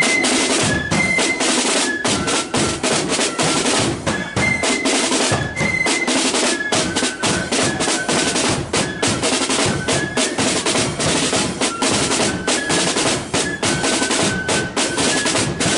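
A marching flute band playing a tune: flutes carry a stepping melody over rapid snare-drum rolls and beats and a bass drum.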